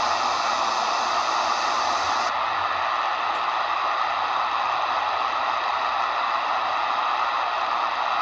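Steady static hiss from a Degen DE1103 shortwave receiver in AM mode, tuned through an empty stretch of the 3 MHz band with no station coming in. As an analog PLL radio it does not mute while tuning, so the band noise plays on unbroken.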